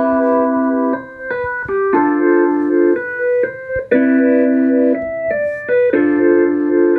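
Software electric piano (Logic Pro's Classic Electric Piano, a suitcase-style electric piano) playing the melody of a hip-hop beat alone: sustained chords changing about once a second in a looping phrase that repeats about every four seconds.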